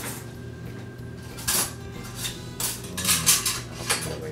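Metal utensils clinking and knocking against dishes and bowls as food is served: about half a dozen separate clinks, the loudest around a second and a half in and again about three seconds in.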